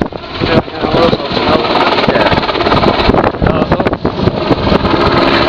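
Royal Navy AgustaWestland Merlin helicopter hovering, its three turbine engines and rotor blades making a loud, dense noise.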